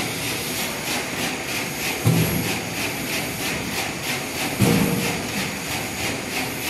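Industrial pomegranate peeling machine running with a fast, even clatter of about three beats a second. A heavier thump comes twice, about two and a half seconds apart.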